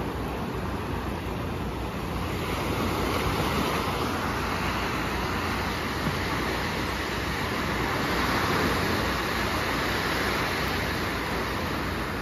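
Small sea waves breaking and washing up on a sandy shore, a steady surf that swells louder a few seconds in and again just past the middle.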